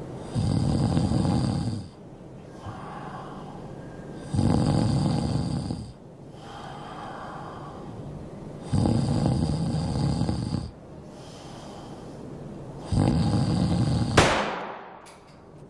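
A man snoring loudly in long rasping snores, four of them about four seconds apart, with quieter breaths out in between. Near the end a sudden sharp bang cuts the last snore off.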